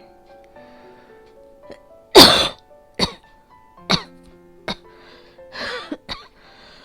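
A woman coughing hard during an asthma attack: one long loud cough about two seconds in, then three shorter coughs about a second apart, then a rasping breath. Soft background music with held notes plays underneath.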